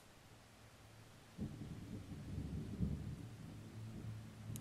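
Low rumble of thunder that starts abruptly about a second and a half in and keeps rolling and crackling, with a louder crack near the middle.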